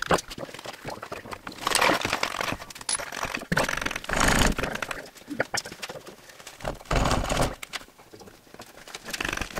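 Wrenches and hand tools clinking, scraping and knocking on the metal of a Land Rover Series IIA gearbox bell housing as its retainer washers and fastenings are worked off. The knocks come in irregular bursts, with louder clusters about two, four and seven seconds in.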